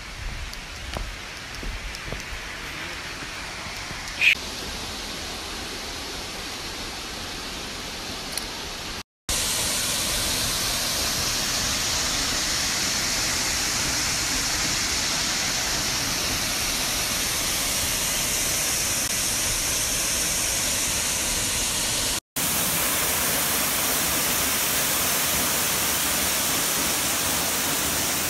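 Steady, loud rush of a waterfall, cutting in abruptly about nine seconds in and running on evenly. Before it, a quieter outdoor hiss with a few soft knocks and one brief high squeak about four seconds in.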